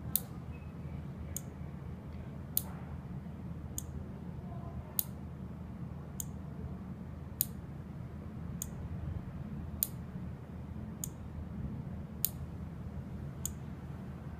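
Short, sharp electronic ticks from a wireless alarm system in pairing (learning) mode, evenly spaced about one every 1.2 seconds, over a low steady hum.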